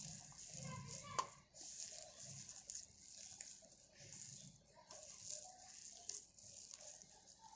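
Hands squishing and kneading a wet mixture of grated beetroot and vegetables in batter in a steel bowl, in soft repeated squelches, with one sharp click about a second in.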